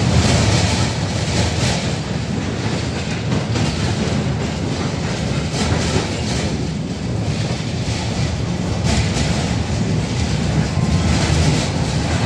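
A 71-605A tram running along the track, heard from inside its passenger saloon: a steady rumble of the car body and wheels, with occasional knocks as the wheels pass over rail joints.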